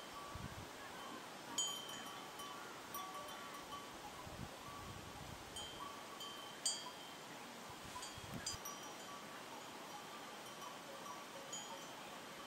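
Small metal livestock bells clanking irregularly at a few different pitches, with sharper strikes about a second and a half in and near seven seconds. A few low gusts of wind hit the microphone.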